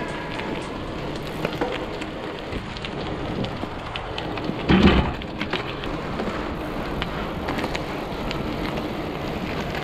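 Bicycle tyres rolling over a rough gravel-and-dirt path: a steady crunching hiss with scattered small clicks, and one louder knock about five seconds in.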